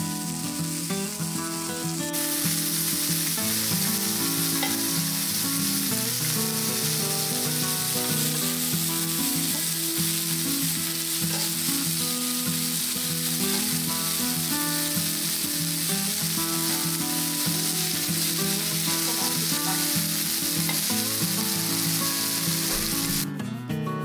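Meat and shiitake mushroom slices frying on a hot grill pan, a steady sizzle that fills out about two seconds in and stops shortly before the end.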